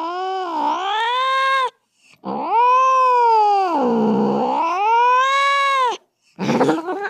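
Domestic cat yowling angrily in long, drawn-out wavering calls that dip and rise in pitch, a threatening caterwaul. One call ends shortly after the start, a second long call follows, then a short rough call near the end.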